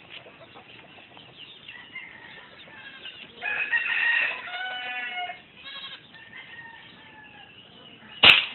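A rooster crows about a third of the way in, with small birds chirping around it. Near the end comes a single sharp crack of an air rifle being fired.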